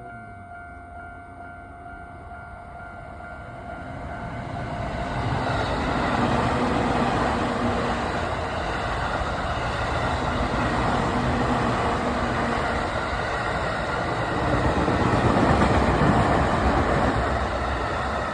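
A Tokaido Line train passing over a level crossing. Its noise builds from about four seconds in and is loudest near the end. The crossing's warning bell rings a steady repeating tone at the start and is then drowned out by the train.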